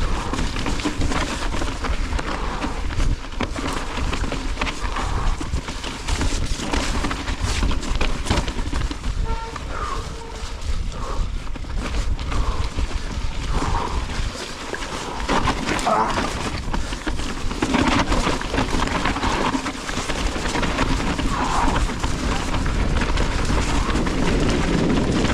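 Action-camera sound of a mountain bike descending a rough, rocky trail: a steady rumble of wind on the microphone, with the bike rattling and clattering over rocks.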